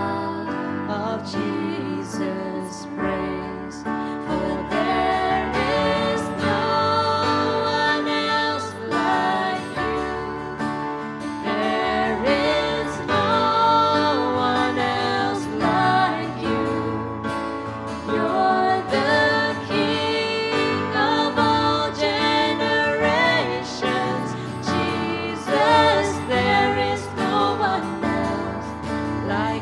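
A worship band playing a slow song: a woman and a man singing the melody over strummed acoustic guitar and keyboard chords.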